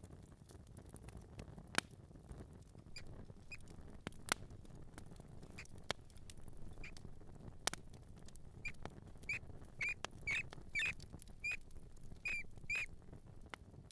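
Mouse squeaking in short, high chirps, a few scattered at first and then a quick run of them in the second half. Sharp clicks and light pattering come in between.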